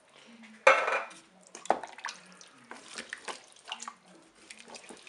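Canned peeled tomatoes tipped from the tin into the metal bowl of a Cookeo multicooker: a wet splat a little under a second in, then scattered scraping and tapping of the tin or a spoon against the bowl.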